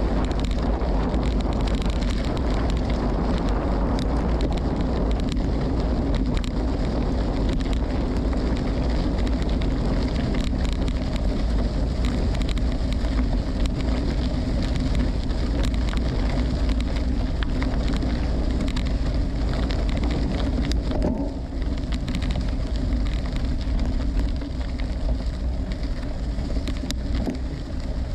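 Wind buffeting the microphone over the steady crunch and patter of gravel-bike tyres rolling over dirt and gravel while riding.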